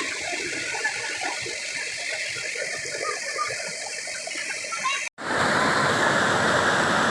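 Rushing water of a stream or small waterfall, a steady rush; it cuts off for an instant about five seconds in and comes back louder and fuller.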